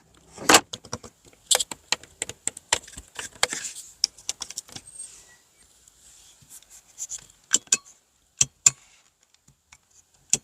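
Handling noise: a string of irregular sharp clicks and rattles, thick through the first four seconds, then sparser single clicks with short gaps.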